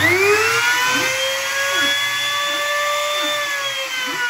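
A 500-watt trim router used as a CNC spindle is switched on by hand and spins up with a rising whine. It then runs at a steady high speed, its pitch sagging slightly near the end.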